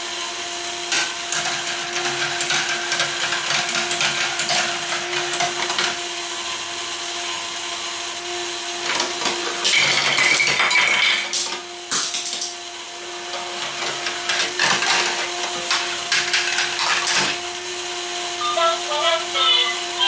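Toy marble run in motion: a small electric motor hums steadily while marbles roll and clatter through plastic track and toy pieces. Near the end comes a quick run of short high chiming notes.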